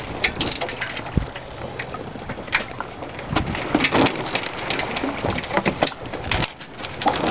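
Wind and water noise aboard a sailboat under way: an irregular rushing hiss broken by frequent crackles and thumps.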